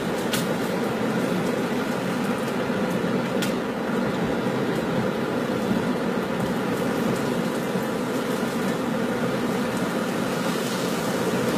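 Steady road and engine noise heard inside a moving car, with two brief light ticks about half a second and three and a half seconds in.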